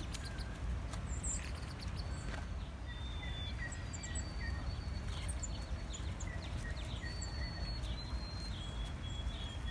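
Scattered short, high chirps of small songbirds over a steady low rumble of background noise.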